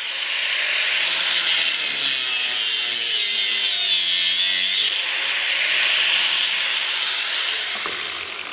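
Angle grinder cutting through the rubber of a small tyre, its pitch shifting as the disc bites and eases. Near the end it is lifted clear and starts winding down.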